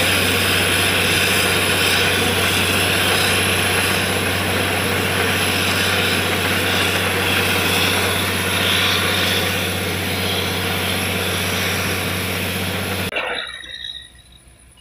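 Borewell drilling rig running steadily under load: a constant low engine-and-compressor hum with a loud hiss as cuttings and water are blown out of the bore. The sound cuts off suddenly about two seconds before the end, leaving only faint clinks.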